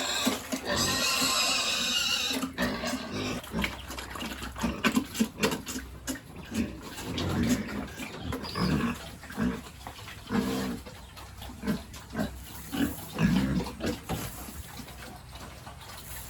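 Pigs grunting over and over in short low grunts, with a loud high-pitched squeal lasting about the first two seconds.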